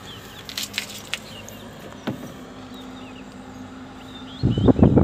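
Steady low hum of a distant engine with birds chirping. About four and a half seconds in, a loud gust of wind starts buffeting the microphone.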